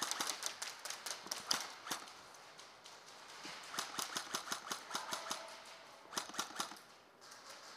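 Airsoft guns firing in runs of rapid, sharp cracks. The cracks are dense over the first couple of seconds, come again as a quick even string around four to five seconds in, and end in a short burst just after six seconds.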